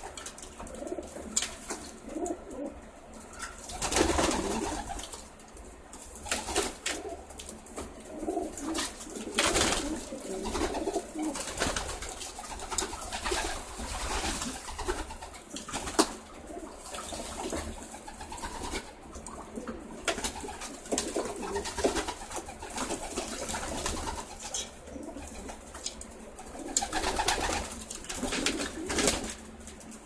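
A flock of racing pigeons cooing while they bathe in a shallow tub of water, with repeated bursts of splashing and wing flutters.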